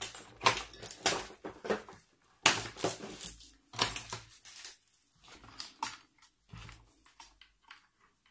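Irregular clicks, knocks and rustling of a laptop and its cables being handled on a workbench, loudest in the first four seconds and thinning out after about six.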